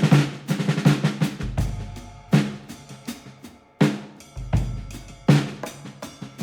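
Background music led by drums: sharp snare and kick hits over sustained deep bass notes, in a repeating pattern.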